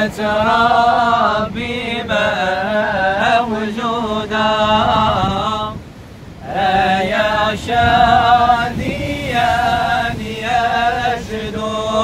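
A group of men singing unaccompanied in the Moroccan madih and sama' style of devotional chant: a slow, ornamented melody in long held phrases, with a short breath pause about six seconds in.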